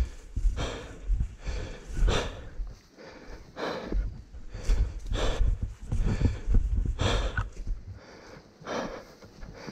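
A man breathing hard and fast, heavy gasping breaths close to the microphone, roughly one a second: winded from heavy exertion.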